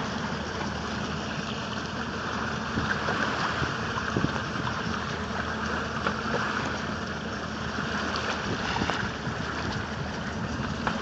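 Motorboat running at low throttle with a steady low engine hum, under an even rushing hiss of water and wind.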